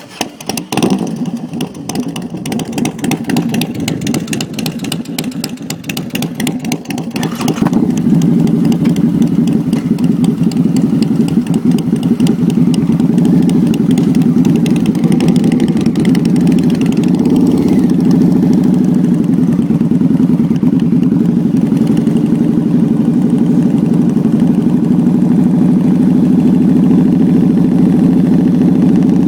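Cruiser motorcycle engine running at a steady idle. For the first several seconds it sounds rough with rattling and clatter; from about eight seconds in it is louder and steady, close to the microphone.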